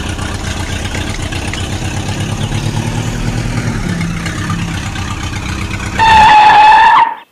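Toy tractor's engine sound running steadily, then a loud horn honk lasting about a second near the end that cuts off sharply.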